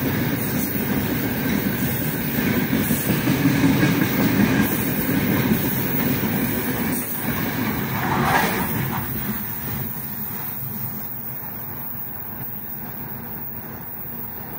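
Heavy freight train of open gondola wagons rolling past close by, a dense rumble of steel wheels on rail, with a brief higher-pitched squeal about eight seconds in. The rumble fades from about ten seconds on as the last wagons pass.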